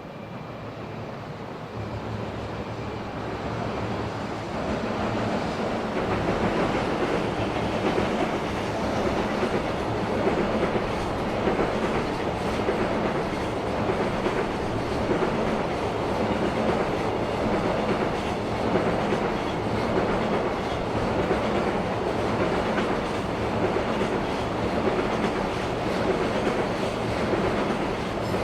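JR freight train running past, its wheels clicking over the rail joints. It grows louder over the first few seconds as it approaches, then holds steady as the wagons roll by.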